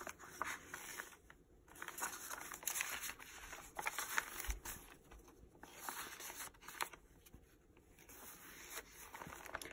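Paper rustling and crinkling as journal pages, a tag and a translucent printed sheet are handled and turned, in soft irregular bursts with short quiet gaps.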